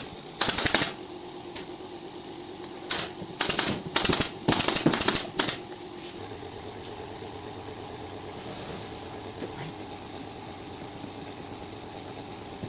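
Upholstery staple gun firing rapid strings of staples in five short bursts, each a quick run of sharp clicks. After about six seconds the firing stops and only a low steady hum remains.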